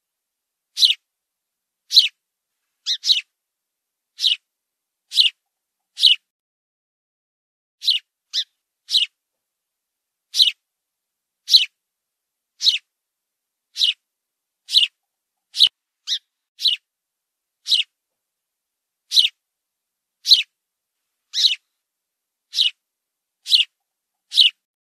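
House sparrow chirping: single short chirps about once a second, now and then two in quick succession.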